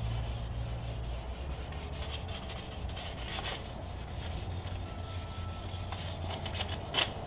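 Hand sanding with a block wrapped in 320-grit wet-and-dry sandpaper, rubbing back and forth over primer and spray putty on a car's roof panel to flatten it before the top coat. A single sharp tap near the end.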